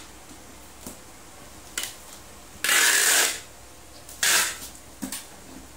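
Brown packing tape pulled off a handheld tape dispenser in two loud pulls of about half a second each, a little before the middle and about four seconds in. Between them come short, soft taps and rubbing of tape being pressed onto the cardboard box.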